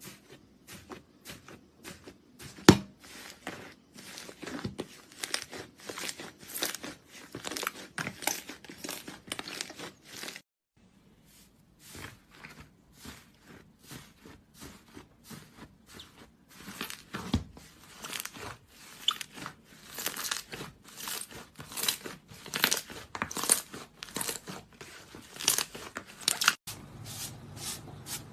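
Slime being pressed, poked and stretched by hand, giving a dense run of small crackling pops and clicks. It breaks off for about a second partway through, then carries on.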